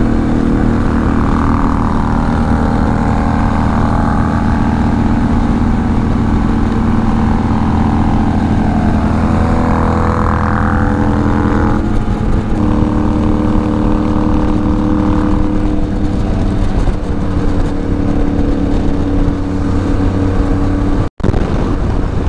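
Benelli TRK 502X parallel-twin motorcycle engine running steadily while riding at road speed. Its note shifts about twelve seconds in, and the sound drops out for an instant near the end.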